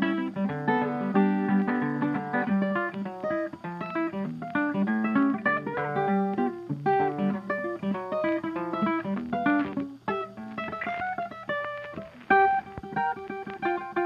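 Background music: a plucked guitar tune in quick, busy notes.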